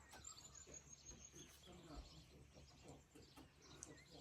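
Faint birdsong: scattered high chirps, with a short run of quick high notes about half a second in.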